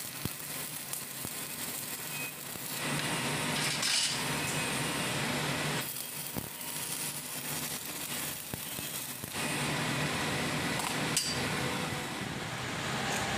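Electric arc welding with a stick electrode on a steel fence frame: the arc crackles and hisses in runs of a few seconds, broken by short pauses.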